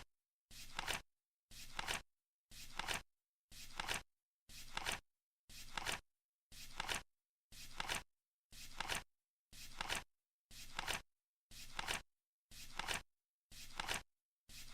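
Flip clock flaps turning over once a second as the timer counts, each flip a short rustle that builds to a sharp snap, about fourteen in a row.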